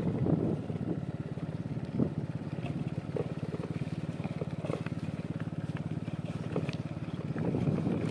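Motorcycle engine running steadily at light throttle while the bike rides along a dirt track, with a few sharp knocks scattered through it.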